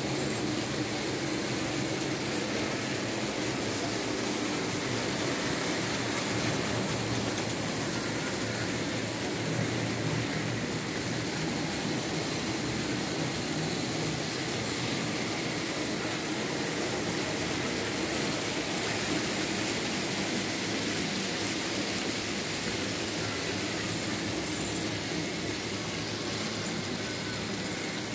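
Märklin H0 model BR 74 steam locomotive running steadily with its freight wagons, a continuous electric-motor hum and the rolling noise of wheels on model track.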